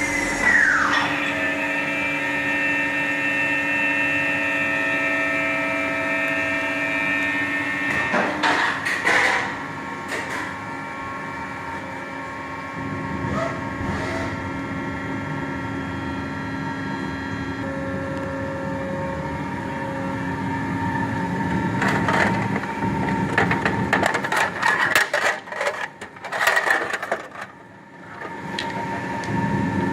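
Gildemeister NEF CT40 CNC lathe running: a whine of several steady tones, with a pitch that rises and falls right at the start. Clicks and knocks come about eight seconds in and again as a clatter in the last several seconds.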